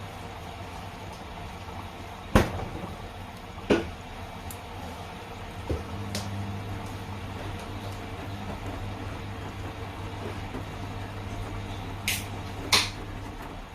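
Washing machines running a delicates 40°C wash, with water sloshing over a steady low hum that grows stronger for several seconds in the middle. Six short sharp knocks come through, the loudest two and a half seconds in and another near the end.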